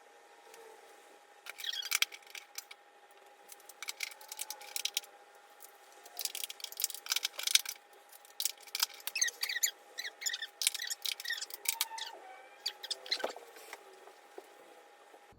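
Small metal objects being handled, with several bursts of quick clicking and rattling over a faint steady tone.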